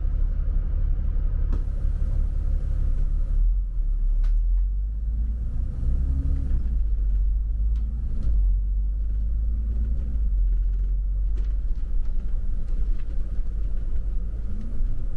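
Double-decker tour bus running, heard from aboard as it moves: a heavy, steady low rumble with an engine note that rises several times as the bus accelerates.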